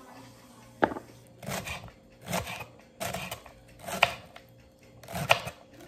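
Kitchen knife slicing through green onion stalks on a wooden cutting board: a sharp knock about a second in, then five crisp crunching cuts about a second apart.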